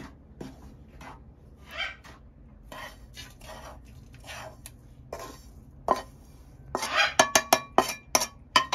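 A spoon scraping and stirring wheat flour as it roasts in ghee in a pan, in soft strokes about once a second. Near the end comes a quick run of sharp, ringing metallic clinks and knocks of utensils against the pan.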